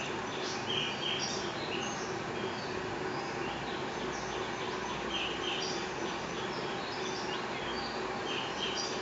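Kawa 48-inch ceiling fan running with a steady hum and whoosh of air. Short high chirps, often in pairs, come every few seconds over it.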